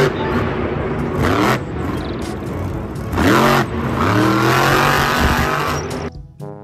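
Monster truck's supercharged V8 engine revving up and down several times as the truck drives across the arena dirt. It dies away near the end.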